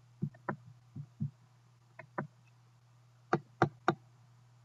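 Computer mouse clicks, about nine short clicks mostly in pairs, with three louder ones close together a little past three seconds in, over a steady low hum.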